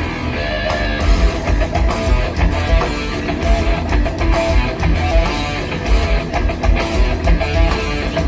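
Rock music with guitar and a steady driving beat.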